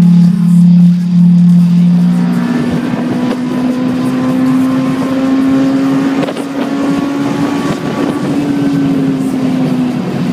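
Honda S2000's engine heard from inside the car on a track straight under hard acceleration. Its pitch climbs slowly through a long pull, then drops near the end as the driver lifts off for the next corner. It follows about two seconds of steady low droning tones at the start.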